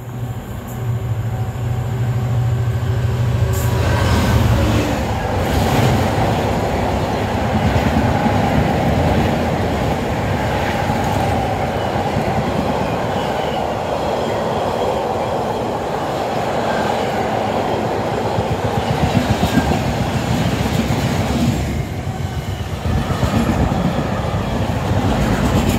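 Freight train passing at speed close by. A steady low hum for the first few seconds gives way to the continuous rumble and clickety-clack of the wagons' wheels on the rails. High-sided box wagons, then empty flat wagons, rush past.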